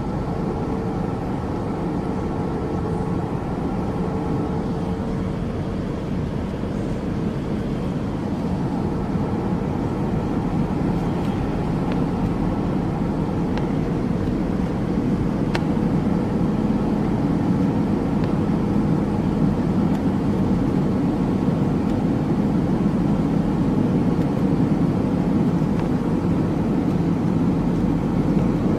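Steady jet engine and airflow noise of an Airbus A320 in flight, getting slightly louder about halfway through.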